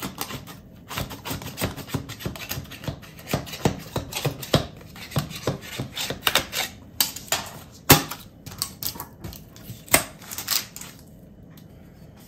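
Knife scraping and clicking along the inside rim of a metal springform cake pan, a quick, irregular run of clicks and scrapes as the cake is cut free, with one louder knock about eight seconds in, easing off near the end.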